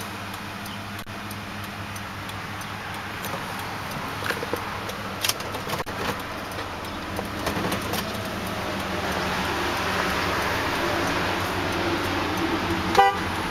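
The Lincoln Mark LT's 5.4-litre Triton V8 idling steadily, heard from inside the cab, with a few light clicks from the controls being handled.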